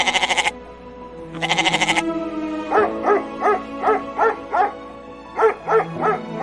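Sheep bleating twice, each a loud, quavering call of about half a second, over background music. From about halfway in, a quick series of short, pitched sounds follows, about four a second.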